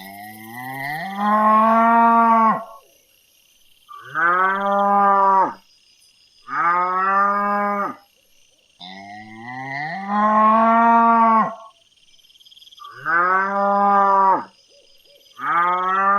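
Cow mooing, six drawn-out moos about every two to three seconds, each lasting one to two seconds.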